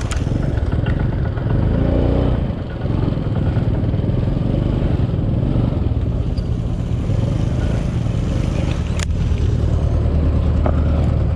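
Small scooter engine running as it is ridden over rough, rutted dirt, with rattling and scraping from the bike and a sharp knock about nine seconds in.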